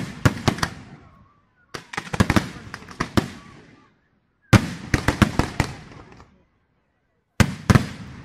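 Aerial firework shells bursting in four quick salvos of sharp bangs, each salvo echoing away before the next.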